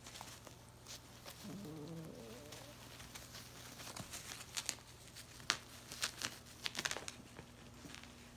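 A sleeping golden retriever puppy gives a short, wavering whimper about two seconds in. Later come quick crinkling and crackling rustles of the bedding as the puppies shift, clustered between about four and a half and seven seconds.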